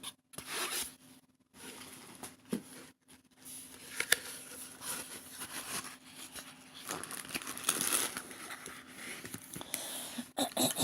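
Packaging crinkling and rustling as it is handled, in uneven spells with a few short sharp ticks.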